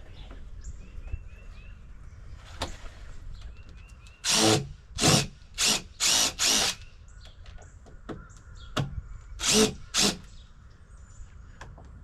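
Cordless drill running in short bursts, backing deck screws out of the boards: five quick runs about four seconds in, then two more near ten seconds.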